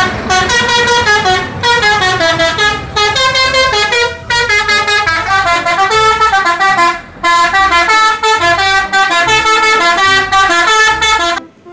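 Indonesian coach's multi-tone 'telolet' musical air horn playing loud melodic phrases of stepping tones, with short breaks between the phrases.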